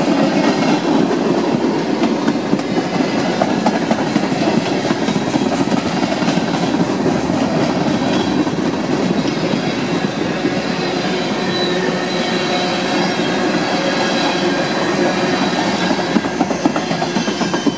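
Freight train cars rolling past close by, a steady loud rumble of steel wheels on rail with clickety-clack over the joints. A faint high wheel squeal joins in the second half.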